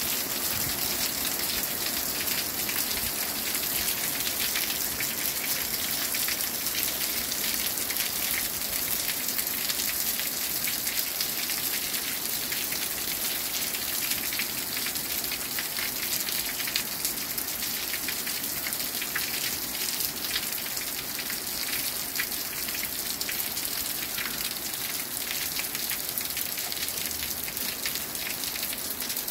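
Heavy thunderstorm rain pouring steadily, with water dripping and spattering off a roof edge, easing slightly near the end.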